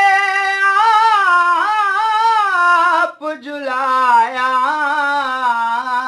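A man singing a devotional qaseeda unaccompanied, in a high voice, drawing out long ornamented notes. He takes a brief breath about three seconds in and resumes on lower notes.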